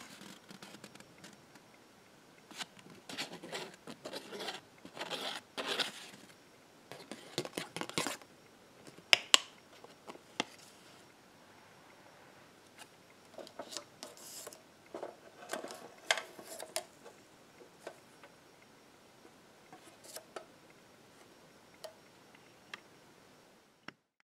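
A folded sheet of paper being handled and crinkled between the fingers: irregular crackles and rustles, with two sharp ticks about nine seconds in. The sound cuts off just before the end.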